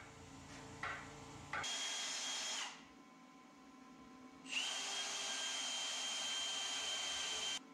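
Handheld electric power tool running in two bursts with a steady high whine: a short run of about a second, then a longer run of about three seconds that cuts off sharply near the end.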